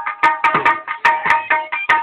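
Background music with a quick, steady drum rhythm and a ringing drum tone.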